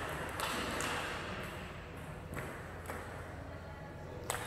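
Table tennis ball clicking off bats and the table in a rally: a handful of sharp, irregularly spaced hits.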